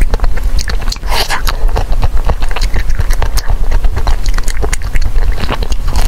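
Close-miked biting and chewing of a coated ice cream bar, with many small wet mouth clicks and a louder bite about a second in. A steady low hum runs underneath.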